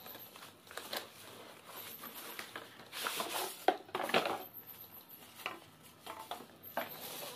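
Hands handling a cardboard product box and its packaging: rustling and scraping with a few sharp knocks, the loudest a little past halfway.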